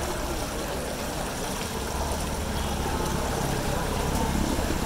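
Floodwater swishing and churning steadily around the wheels of a rickshaw wading down a flooded street, over a constant low rumble of street noise.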